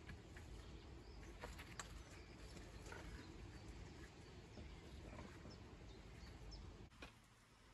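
Near silence: a faint low outdoor rumble with a few soft, scattered clicks.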